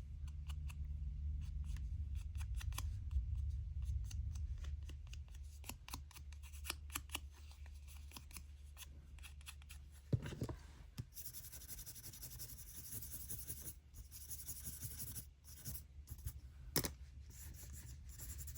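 Brush bristles scratching over card in quick short strokes, blending out a finger-rubbed layer of wax, over a low steady hum.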